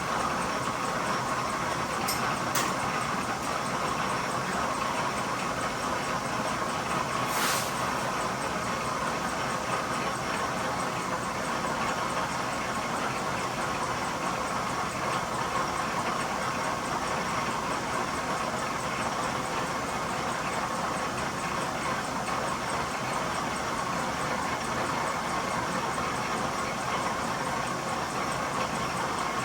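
1943 South Bend lathe running steadily while cutting a deep internal thread. Two faint clicks come about two seconds in, and a brief hiss about seven seconds in.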